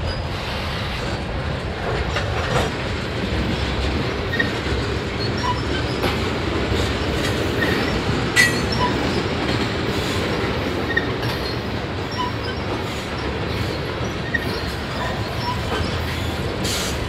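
Freight cars (tank cars and covered hoppers) rolling past with a steady rumble of wheels on rail. Irregular clicks sound as the wheels cross rail joints, with a sharper bang about eight seconds in, and short high squeaks from the wheels come and go.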